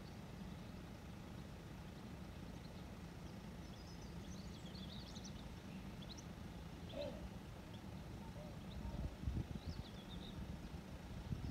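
Faint outdoor ambience: a steady low rumble with small birds chirping now and then, and a few low thumps near the end.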